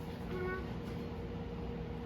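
A toddler's brief, faint high-pitched vocal sound, like a small squeak or mew, over a steady low background hum.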